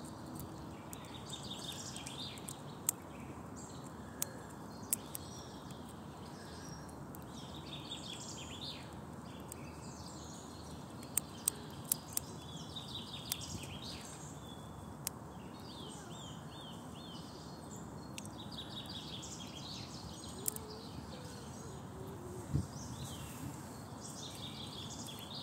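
Small birds chirp and sing in short repeated phrases over a steady outdoor hiss. About a dozen sharp, scattered cracks come from a red squirrel biting open pine nut shells.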